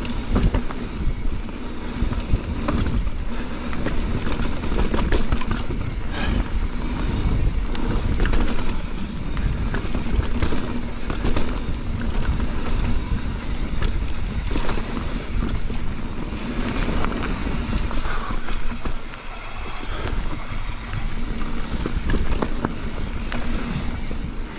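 Mountain bike riding fast down a rocky trail: steady wind on the microphone and tyre rumble, with frequent short knocks and rattles from the bike over rocks and roots.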